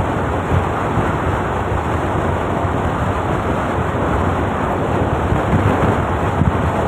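Steady rush of wind buffeting the microphone on a motor scooter cruising at road speed, with the scooter's running noise mixed in underneath.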